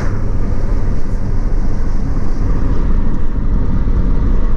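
Hyundai car driving at road speed, heard from inside the cabin: a steady low rumble of tyres, engine and wind.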